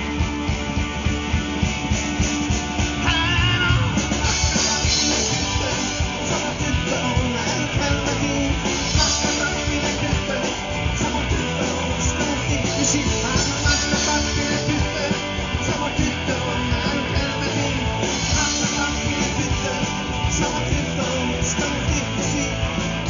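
Live rock band playing, with electric guitars, bass guitar and a drum kit.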